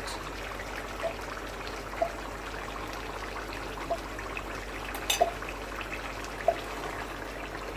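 Chicken curry sizzling in the pot, a steady hiss with small pops now and then and one sharper click about five seconds in.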